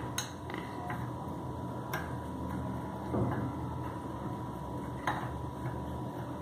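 Metal spoon stirring coarse ground spice mixed with lemon juice in a small glass bowl, scraping through the spice and clinking sharply against the glass three times.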